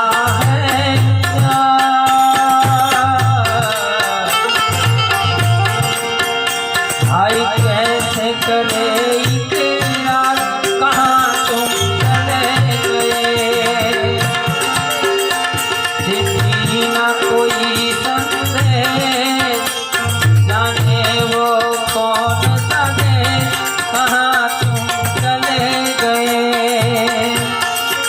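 Instrumental music: a harmonium playing the melody in long held notes over a steady hand-drum beat.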